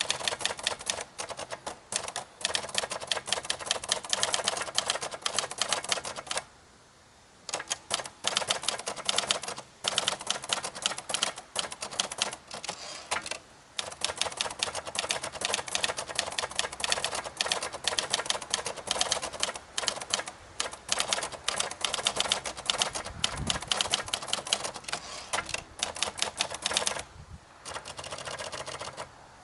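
Escort 55 manual portable typewriter (an Olivetti Lettera 32 mechanism) being typed on: a fast, dense run of keystrokes with typebars striking the platen. There are brief pauses about seven and fourteen seconds in, and a softer stretch near the end.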